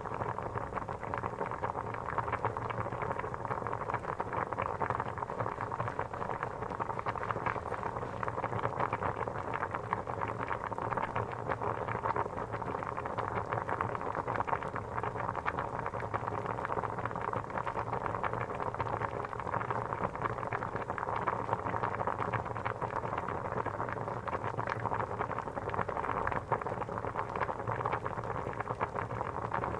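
Water boiling hard, a steady dense bubbling and popping.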